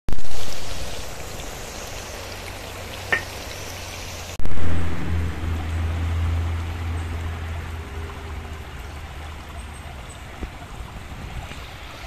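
Oil sizzling around eggplant slices frying in a pan, loud at first and settling, with a single click about three seconds in. After a sudden cut, a deep low hum swells and dies away over a few seconds above a shallow stream running steadily over stones.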